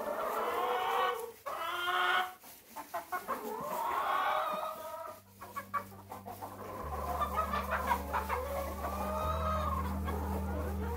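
A flock of laying hens and roosters clucking and calling, with several drawn-out calls in the first half and weaker clucks later. Sharp clicks come between the calls from about two to six seconds in.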